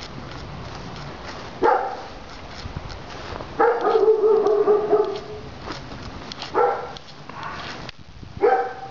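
A dog barking a few times, with one long, drawn-out whining call in the middle.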